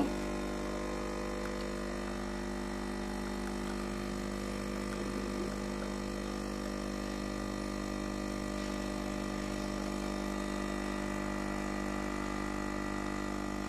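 Nespresso Pixie capsule machine's pump buzzing steadily as it brews a lungo.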